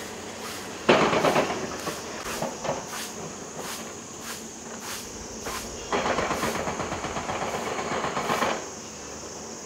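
Demolition machinery (JCB excavators) breaking up a stone building, with two loud, rough bursts of crashing and rattling. The first is brief, about a second in. The second starts about six seconds in and lasts about two and a half seconds.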